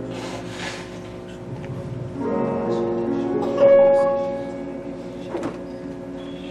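Soft keyboard music playing slow sustained chords, with new chords coming in about two seconds and three and a half seconds in.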